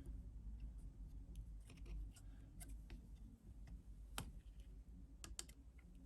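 Faint, scattered small clicks and taps of an iPhone 7's screen connectors and small parts being handled and unclipped during disassembly, with a sharper click a little after four seconds and two quick ones about a second later, over a low steady hum.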